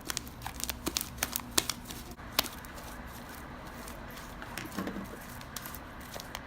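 Sticky slime being squeezed and kneaded by hand, giving off a quick irregular run of sharp clicks and pops that thins out after about two and a half seconds.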